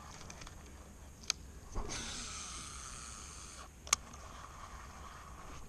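Baitcasting fishing reel being cast: a sharp click, then the spool whirring for about two seconds as line pays out, then another sharp click as the reel is engaged.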